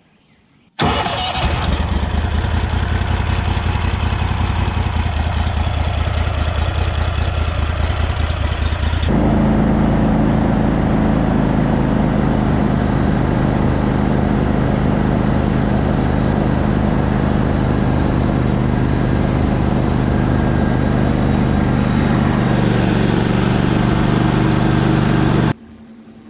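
Gator-Tail GTR40XD mud motor running steadily, pushing the boat along under way. It cuts in abruptly about a second in, changes abruptly to a lower, steadier note about nine seconds in, and cuts off suddenly near the end.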